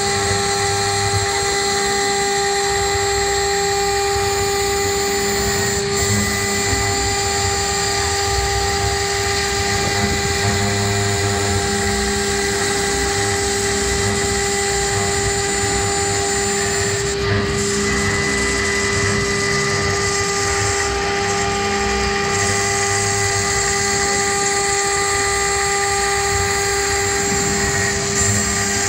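CNC router spindle milling 10 mm aluminium plate with an end mill: a steady whine of several fixed tones over the noise of the cut.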